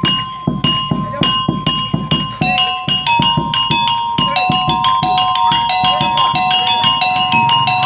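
Street-performer's monkey-show music: a hand drum beaten in a steady rhythm under small tuned metal percussion ringing out several pitches. The pattern gets busier about two and a half seconds in.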